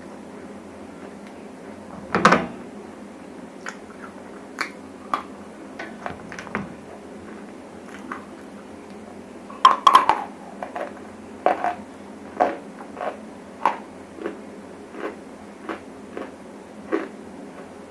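Close-miked biting and chewing of dry grey clay chunks, a dry crunch: a loud bite about two seconds in, another near the middle, then steady chewing crunches about once or twice a second over a faint steady hum.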